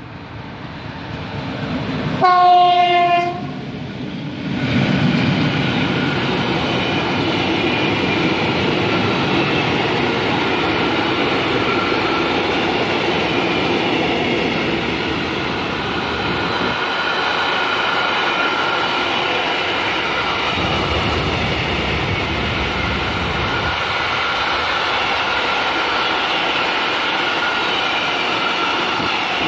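A train approaches and sounds one short horn blast of about a second, on a single pitch. It then passes close by at speed, its wheels clattering on the rails under a steady high whine, for the rest of the time.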